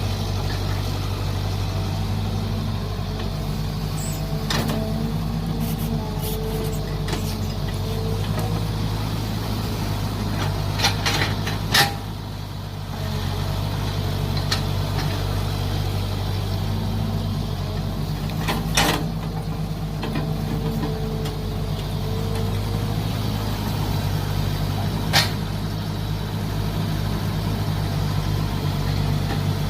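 Mini excavator's engine running steadily while digging, with the hydraulics shifting in pitch as the arm works. Several sharp metallic clanks are heard along the way.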